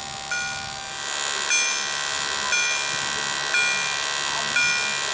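Level-crossing warning bell on the signal mast, sounding a ringing strike about once a second while the crossing is closed for an approaching train. A steady hiss rises behind it from about a second in.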